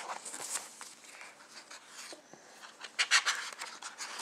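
Hands handling a framed photo and the pages of a ring-binder scrapbook: scattered rubbing and rustling, loudest about three seconds in.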